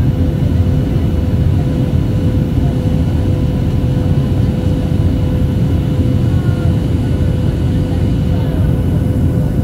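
Steady cabin noise of a Boeing 737-800 in flight, heard from a window seat over the wing: the low, even rumble of its CFM56 turbofan engines and the rushing airflow, with a thin steady tone running through it.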